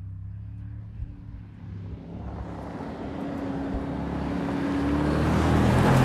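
Mercedes-AMG G63's twin-turbo V8 running as the SUV drives up and passes close, its engine hum and tyre noise growing steadily louder to a peak near the end.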